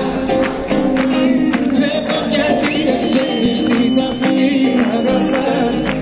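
Live amplified band music with a male singer, over a steady drum beat, heard from within the concert crowd.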